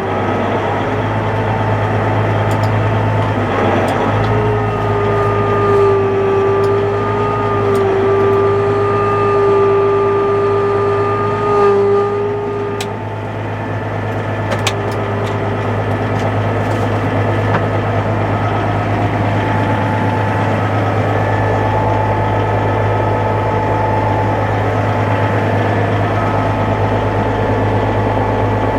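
Cat tractor's diesel engine running steadily under way, with a high whine over the engine that stops about 13 seconds in.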